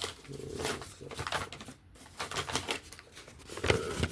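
A freehand-sharpened folding-knife edge drawn through paper towel, making irregular scratchy rasps and small clicks. The paper is catching and dragging on an edge the owner finds slick in spots.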